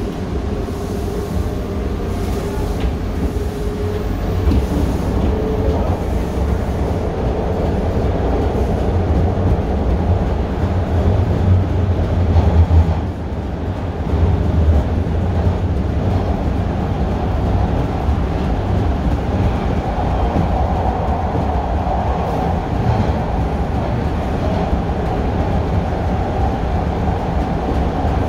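Bombardier T1 subway train running along the line, heard from inside the car: a steady heavy rumble of wheels on rail, with a faint whining tone over it.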